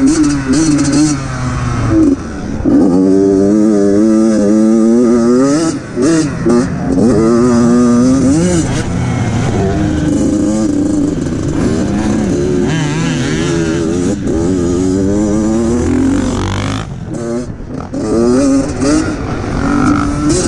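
Dirt bike engine ridden hard around a motocross lap, its pitch climbing again and again as it winds up through the gears, breaking off between climbs as the throttle is shut, with a brief dip near the end.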